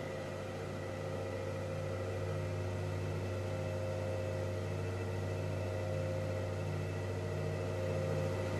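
Grizzly G0555 14-inch bandsaw running free with no cut, its electric motor and blade making a steady hum with a soft regular throb about once a second. The cast-iron saw runs smoothly with little vibration.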